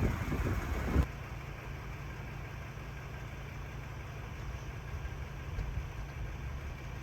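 Steady low rumble of a car's engine and road noise heard from inside the cabin. For about the first second there is a louder, rougher noise before it settles into the even rumble.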